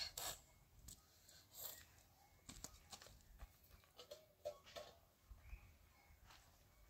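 Near silence with faint, scattered clicks and taps.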